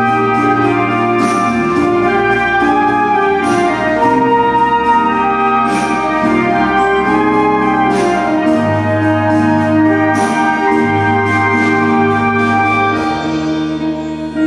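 Clarinet orchestra playing a pop medley with a band of electric guitar, bass guitar and drums: held chords over a steady bass line, with struck accents every two seconds or so.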